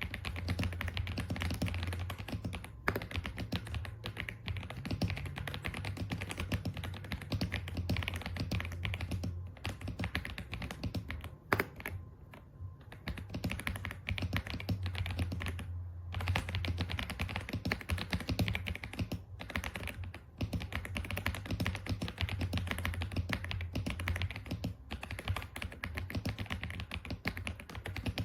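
Typing on the EPOMAKER x Aula F75, a gasket-mounted 75% mechanical keyboard: fast, continuous keystrokes with a few brief pauses.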